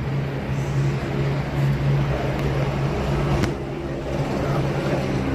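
Steady low hum over a constant background noise, with one sharp click about three and a half seconds in.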